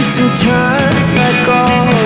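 Music with guitar and a wavering melody line.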